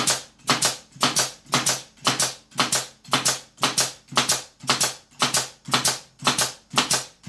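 Pneumatic pin nailer firing pins into a wooden block in a fast, even series: about fourteen sharp shots, nearly two a second.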